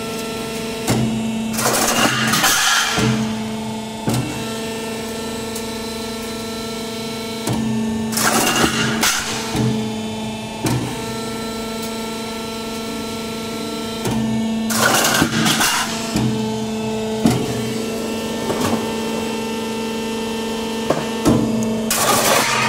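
Corrugated roofing sheet roll forming machine running with a steady hum of several fixed tones. A louder noisy burst comes about every six or seven seconds.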